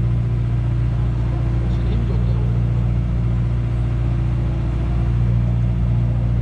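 Fishing boat's engine running steadily: a constant low drone that neither rises nor falls.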